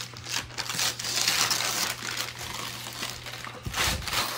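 Wrapping paper being torn and crumpled off a gift box by hand, in crinkling rustles, with a low thump near the end.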